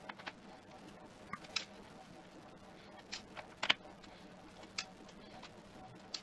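Scattered light clicks and ticks of a Torx 6 screwdriver and small screws being worked out of a Comand unit's circuit board, about ten in all, the loudest a little past the middle.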